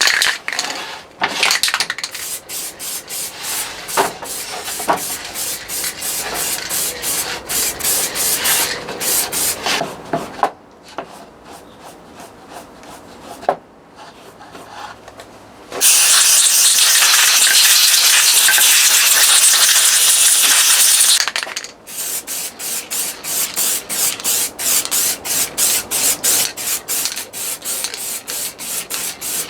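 Repeated hand strokes of a brush or file scrubbing a part, in loud runs with a quieter spell. Partway through, a steady hiss of spray or blown air lasts about five seconds, and then the scrubbing resumes at about three strokes a second.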